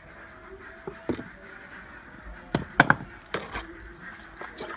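A series of sharp wooden knocks and clatters as a wooden chopping board and a plucked duck are handled and set down on a concrete floor, with the loudest quick cluster of knocks a little past halfway.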